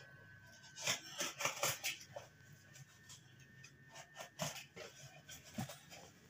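Irregular short clicks and rustling scuffs, bunched about a second in and again near the end, over a faint steady high tone.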